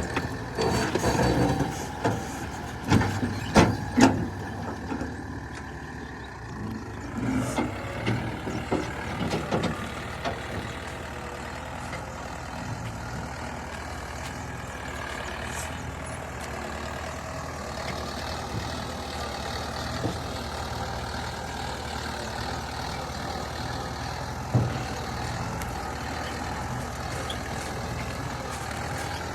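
Heavy diesel machinery running at work, with a series of loud knocks and clanks in the first ten seconds, then a steady engine drone with one more knock near the end.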